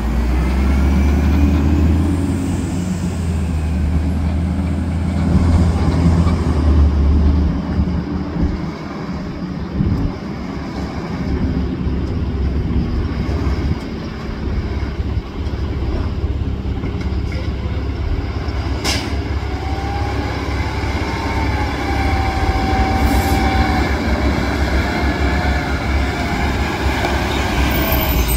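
Automated side-loading garbage trucks working the curb: engines running with a heavy low rumble, strongest in the first third. About two-thirds through there is one sharp bang, followed by a wavering whine of the hydraulic lift arm for a few seconds.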